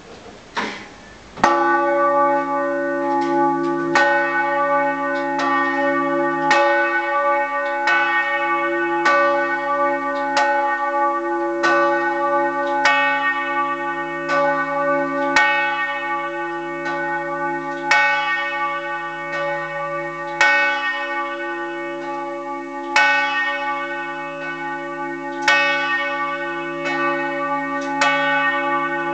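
Large swinging church bell, cast by the Fischer brothers in 1930 and tuned to C-sharp, rung by hand with a rope for a funeral toll. The clapper strikes over and over, its long ringing overlapping from one strike to the next, after a little rope and frame handling noise before the first strike.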